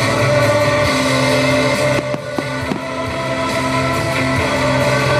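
Rock music with guitar playing as the soundtrack of a fireworks show, with a few short sharp bangs about two seconds in.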